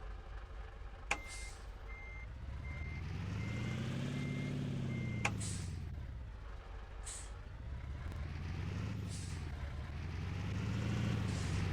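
Water tanker truck's diesel engine revving up and easing off several times as it drives. About six high electronic beeps sound in a row, starting and ending with a sharp click. Short air hisses come near the later engine peaks.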